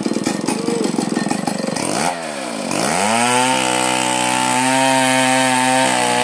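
Two-stroke chainsaw just started, running unevenly at low speed, then about two seconds in it dips and revs up to a steady high full-throttle speed that holds with small dips in pitch.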